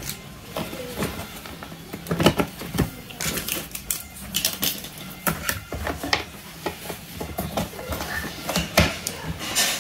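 Hard plastic toy pieces clicking and knocking as they are handled and fitted onto a plastic toy doctor-set case, in irregular taps with a few sharper clacks.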